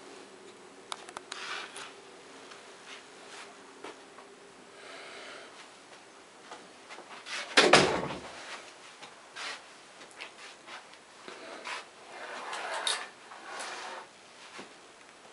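Scattered clicks, knocks and rustling as a wooden door or piece of furniture is handled. One loud thump comes about halfway through, and a faint low hum runs through the first few seconds.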